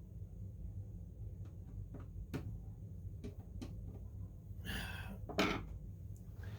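Small clicks and scrapes of a screwdriver working at a tiny M.2 heatsink screw on a motherboard, a few sharp ticks and then a couple of louder scraping rasps about five seconds in, over a steady low hum.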